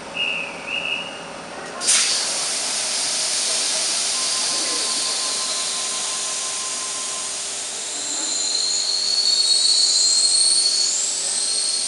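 Tangara electric train standing at the platform: two short high-pitched tones, then about two seconds in a sudden loud hiss of air that carries on steadily. Thin high squealing tones glide over the hiss in the last few seconds.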